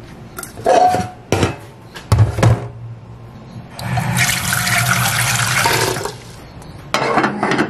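Stainless steel pot knocking a few times against a metal sink, then tap water running into the pot for about two seconds as it fills for boiling noodles.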